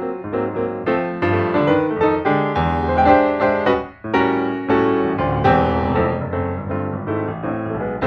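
Background piano music: a keyboard melody of struck notes that ring and fade.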